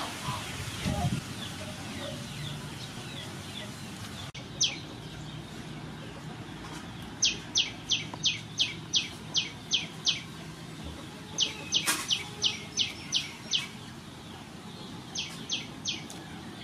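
A bird calling in runs of quick, evenly spaced high notes, about three a second, in three bursts that begin a few seconds in. A single sharp knock comes about twelve seconds in.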